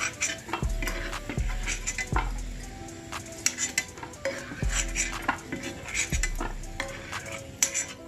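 Cashews sizzling in hot oil in a kadai while a metal spoon scoops them out, clinking and scraping against the pan and a steel plate several times.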